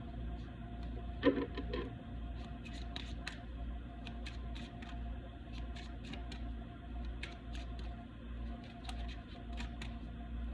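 Reading cards being handled: a run of small, sharp clicks and taps scattered irregularly over a steady low hum, with a slightly louder cluster about a second in.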